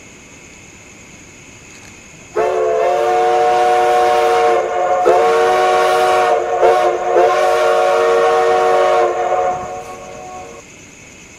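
Nathan five-chime steam locomotive whistle sounding a chord of several steady tones in one long blast, briefly broken a few times in the middle, then dying away, over a steady background hiss.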